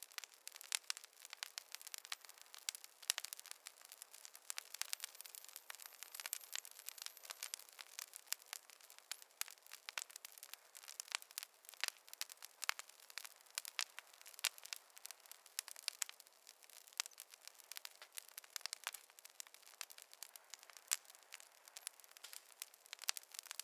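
Wood fire crackling, with many irregular pops and snaps over a faint hiss and no low roar of flame.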